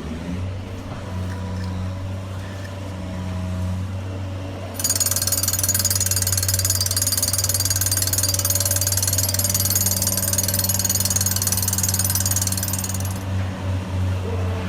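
Small electric motors and gearing of an RC model construction machine running with a steady hum. About five seconds in, a loud, high-pitched mechanical rattle starts and runs for about eight seconds, then cuts off suddenly.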